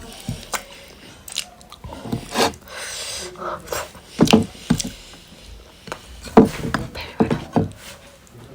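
Close-up eating sounds: irregular bites and chewing clicks, mixed with short bursts of voice. The loudest bursts come about four and six seconds in.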